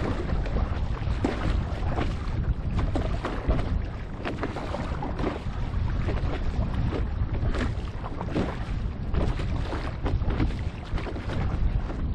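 Wind buffeting an action camera's microphone, with water splashing and slapping against a board at irregular moments throughout.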